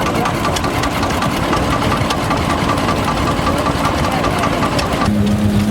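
Engine running at idle with a quick, even knocking beat. About five seconds in it gives way abruptly to a steady low drone.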